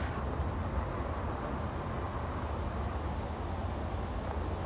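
Insects chirring in a steady high-pitched drone, over a steady low rumble.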